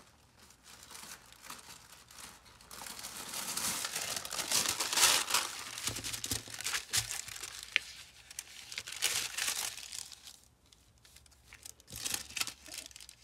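A large sheet of wax paper crinkling as it is laid out and smoothed flat by hand. The rustling builds after a couple of seconds, is loudest in the middle, dies away, and comes back briefly near the end.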